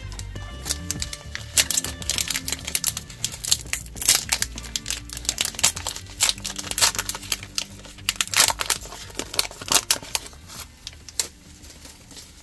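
A trading-card booster pack wrapper being crinkled and torn open by hand: an irregular run of sharp crackles that thins out near the end, with background music underneath.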